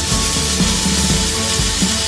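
Background music with a steady beat, over the continuous hiss of abrasive grit blasting against a ship's hull.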